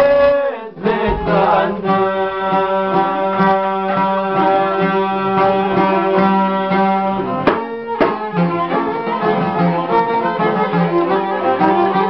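Albanian folk music with singing and plucked long-necked sharki lutes over a steady low drone. A sharp click comes about seven and a half seconds in.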